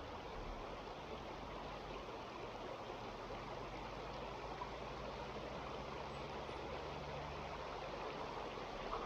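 Mountain stream water running steadily, an even rushing without breaks.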